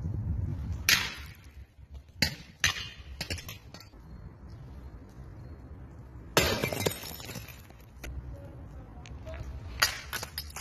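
Thrown objects smashing on stone paving, several sharp crashes with glass shattering and pieces clinking, the longest crash about six seconds in.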